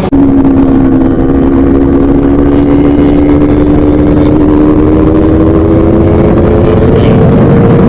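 Drag-bike motorcycle engine held at high revs, loud and steady, its pitch creeping slowly upward.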